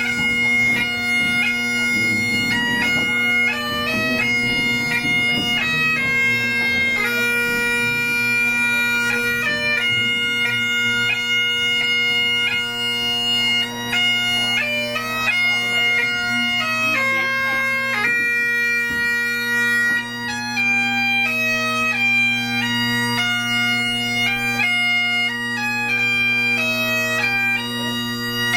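Bagpipes playing a tune, the melody stepping from note to note over steady, unbroken drones.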